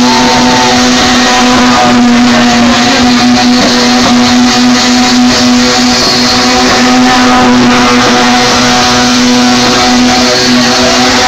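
Rotary-engined BMW sedan doing a burnout: the engine is held at high revs at a near-constant pitch while the tyres spin on the tarmac with a steady screech.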